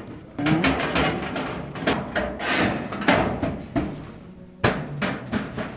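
Handling noise in a galvanized sheet-metal nest box: a string of sharp knocks and thuds against the metal compartments, with rustling of nesting straw in between.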